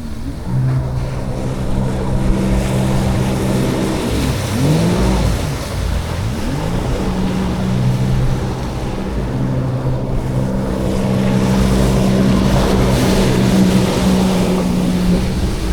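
Jet ski engine running under way, its pitch dipping and climbing again with the throttle a few seconds in, over water and wind noise.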